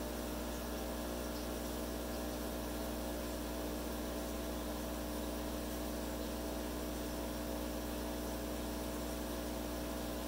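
Steady machine hum over a constant hiss, unchanging throughout.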